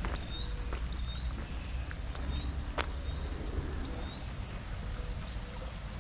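A bird calling over and over with a short, high, rising chirp, repeated about once a second with a pause in the middle, over a low steady rumble of wind on the microphone. A single sharp click sounds a little under three seconds in.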